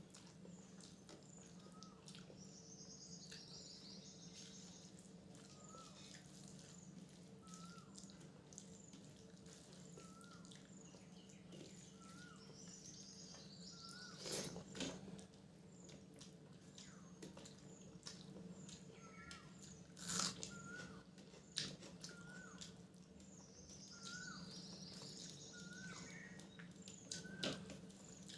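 Faint small-bird chirps repeating about every second and a half, with a few quick higher twittering runs, over a steady low hum. A few louder clicks from eating stand out about halfway through and near the end.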